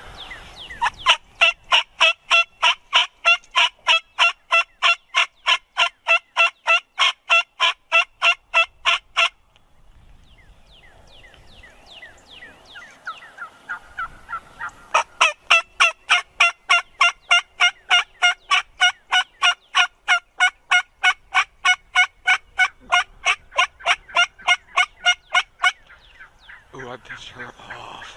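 Turkey yelping: two long, evenly paced runs of loud yelps, nearly four a second, the first lasting about eight seconds and the second about eleven. Faint songbird chirps fall in the pause between them.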